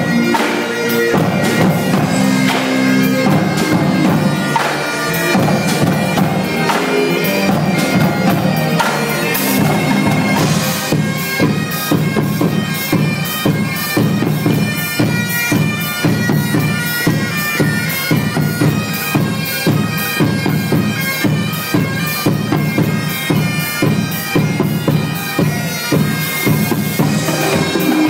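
Great Highland bagpipes playing a tune over their steady drones, together with a marching drum line. The drumming turns into dense, rapid strokes from about eleven seconds in.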